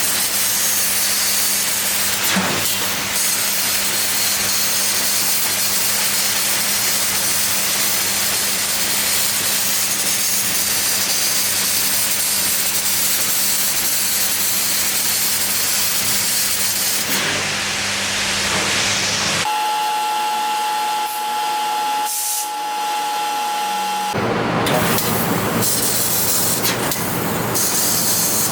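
1500 W fiber laser cutting machine cutting 5 mm carbon steel: a loud, steady hiss of the assist-gas jet and cut over a low machine hum. About two-thirds through, the hum drops out for a few seconds and a steady whine comes in, then the hiss returns.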